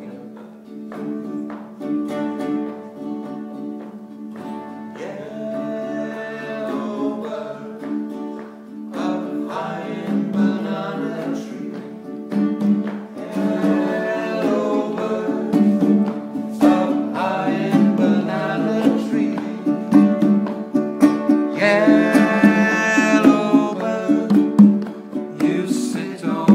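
Live acoustic music: ukulele and acoustic guitar strummed over hand-played conga drum, with a man singing from about five seconds in.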